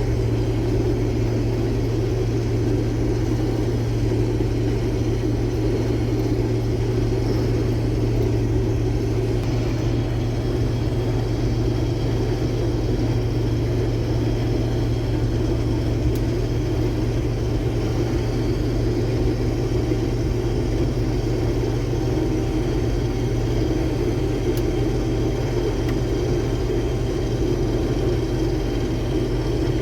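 Case IH Axial-Flow combine running, a steady, unchanging low drone.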